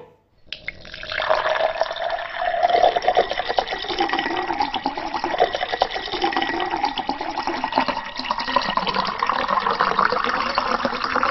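Water pouring in a steady stream into a glass, splashing and gurgling. It starts about half a second in, after a brief silence.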